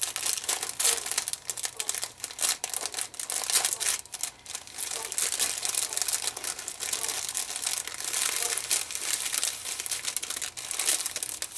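Clear plastic bag crinkling and crackling continuously as it is handled and packed with fabric flowers and lace.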